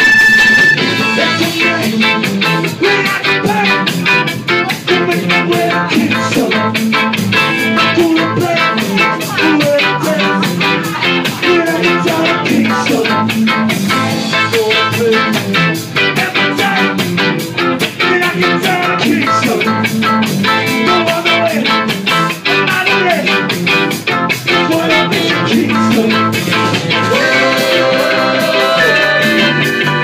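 Ska band playing live: electric guitar, bass and drum kit with a singer's voice over them, loud and steady.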